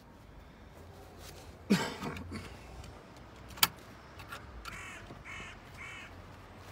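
A crow cawing: one loud harsh caw about two seconds in, then three shorter caws in quick succession near the end. A single sharp knock sounds in between.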